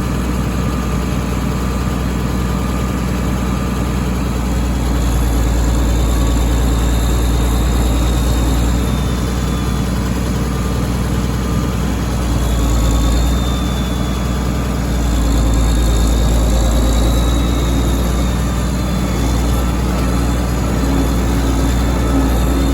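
Tractor engine running steadily, a loud low drone heard from close by on the machine.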